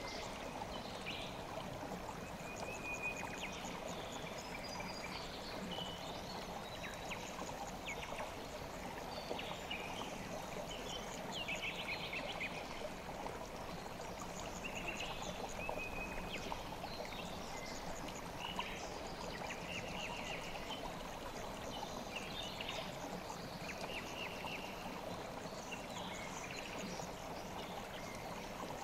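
Mountain stream flowing steadily, with small birds chirping in short, high calls over the rush of water.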